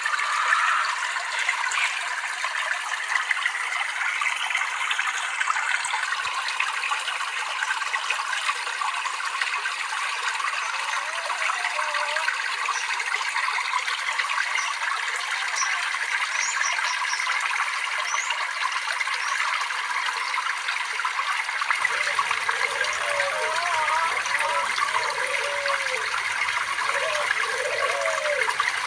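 Water trickling and splashing steadily. About three-quarters of the way through, the sound changes abruptly, and lower gurgling, bubbling sounds join in.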